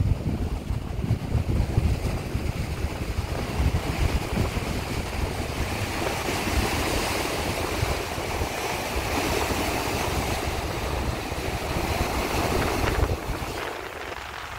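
Sea waves washing and breaking against the rocks of a shoreline breakwater, with wind gusting on the microphone as a fluttering rumble. The sound eases somewhat near the end.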